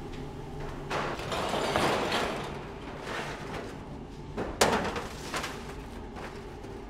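Bakery work sounds over a steady machine hum: a rush of noise about a second in, then a sharp clatter of a metal baking tray a little after the middle, followed by a few lighter knocks.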